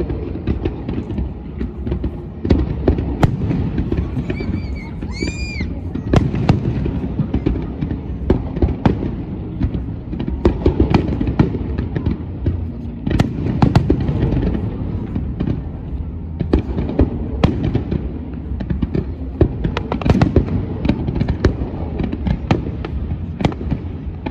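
A fireworks display going off in a continuous volley: many sharp bangs and crackles from aerial shells and comets, several a second.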